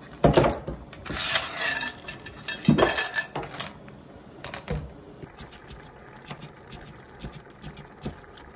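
Clams in their shells rattling in a stainless steel bowl and tipped into a pot of stew, the metal bowl clanking sharply twice, once near the start and again about three seconds in. Faint light clicks follow.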